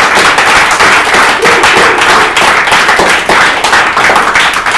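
Audience applauding: many hands clapping loudly and densely.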